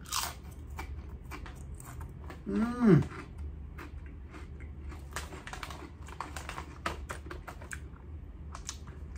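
Crunching of a rippled potato chip being bitten and chewed close to the microphone: a dense, irregular run of sharp crackles. About two and a half seconds in there is a short hum from the eater's voice that falls in pitch.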